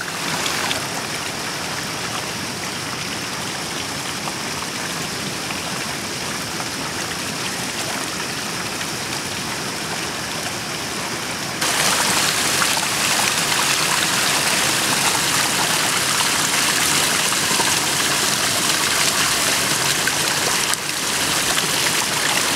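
Muddy floodwater rushing over rocks and splashing through the mouth of a hoop-framed fish net set in the current, a steady rush that gets louder about halfway through.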